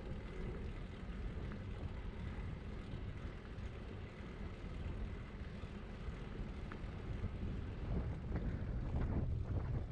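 Wind rumbling on a bike-mounted camera's microphone while cycling along a city street, with road noise underneath; it grows louder and gustier about eight seconds in.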